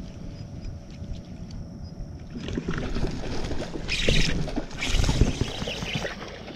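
Water splashing, with knocks and rattles close by. It gets louder after about two and a half seconds, with the biggest splashes about four and five seconds in, as a hooked fish thrashes at the surface beside the boat.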